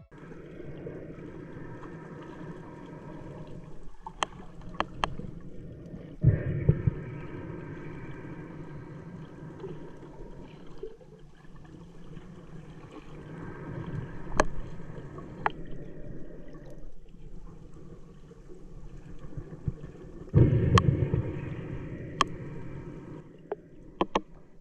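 Muffled water noise picked up by a spearfisher's camera, with scattered sharp clicks and two louder low rushes of water, about six seconds in and again near the twenty-second mark.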